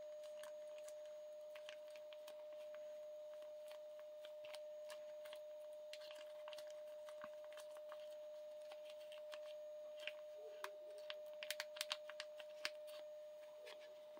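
Faint crinkling and clicking of a small plastic sour-cream packet being handled and squeezed out, with a cluster of sharper clicks from about ten seconds in. A faint steady hum underneath.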